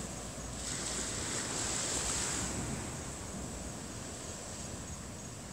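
Ocean surf washing onto the beach: a rush of noise that swells for a couple of seconds and then eases off.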